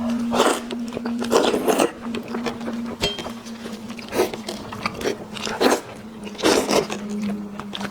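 Close-up eating sounds: a person biting, chewing and crunching into spicy braised sheep head, in irregular bursts about every second. A faint steady hum runs underneath.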